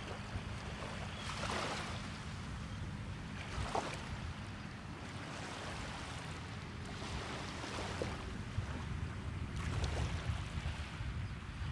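Gulf Coast surf: small waves washing onto the beach every few seconds, over a steady low wind rumble on the microphone.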